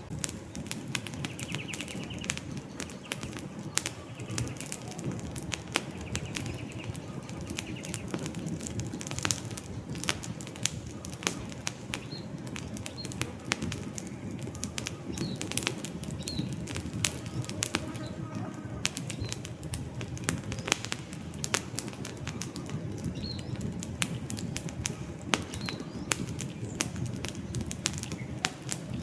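Campfire of burning wood logs, crackling with frequent sharp irregular pops and snaps over a low rush of flame.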